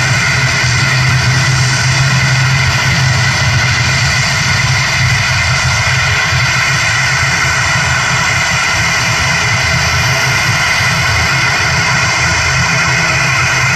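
The two turboprop engines and propellers of an ATR 72-500 running at taxi power. It is a steady, loud drone with a low hum and a higher, even whine.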